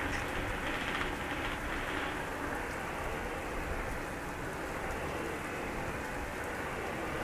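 Steady heavy rain falling, an even hiss of drops.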